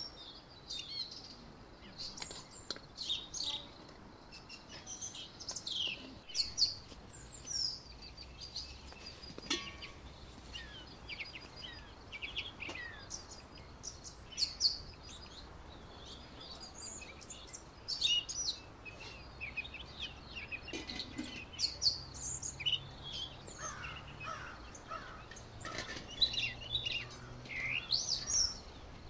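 Small songbirds chirping and singing, with many short, high calls that slide up and down in quick succession.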